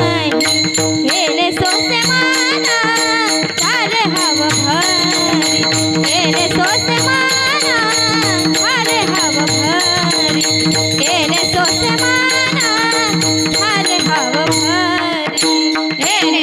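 Varkari kirtan music: a melody with quick wavering ornaments over a steady held drone, with pakhawaj drum strokes and regular clashes of small hand cymbals.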